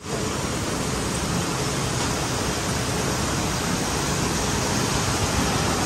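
Jute mill processing machinery running: a steady, dense mechanical noise that fills the whole range evenly.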